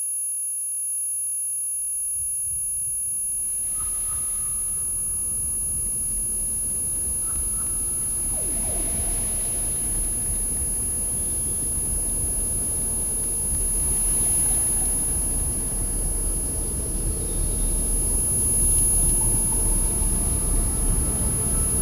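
Synthesized electronic drone: a steady high-pitched sine tone held throughout with fainter steady tones beneath, joined after about three seconds by a low, noisy drone that slowly builds. A brief falling glide comes through near the middle.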